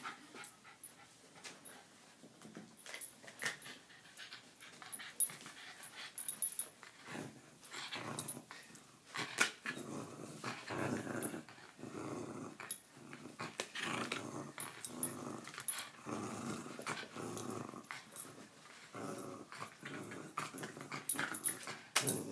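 Jack Russell terrier play-growling while tugging and leaping at a tug toy. The growls come in short, repeated bursts, fainter at first and much busier from about eight seconds in.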